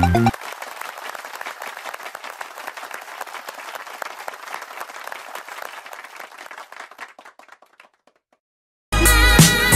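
Applause, many hands clapping, fading away over several seconds. Loud music starts near the end.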